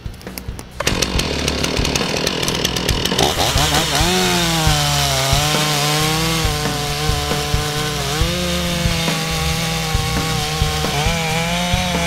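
STIHL two-stroke chainsaw cutting the face notch into a tree trunk. It comes in suddenly about a second in and runs at full throttle, its engine pitch sagging and recovering again and again as the chain bites into the wood.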